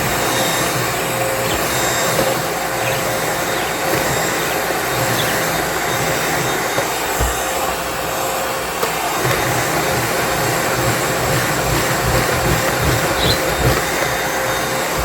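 Vacuum cleaner running steadily, a constant rushing noise with a steady whine, with low irregular bumps in the second half as it is worked along the floor.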